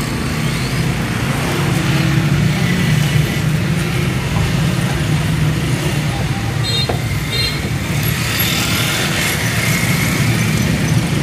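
Steady low motor drone under outdoor street noise, with a few brief light clicks.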